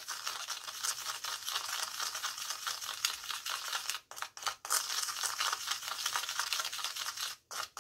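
Plastic spoon stirring dry Himalayan salt and baking soda in a small plastic bowl: a fast, gritty scraping of salt crystals against the bowl. It breaks off briefly about four seconds in and again near the end.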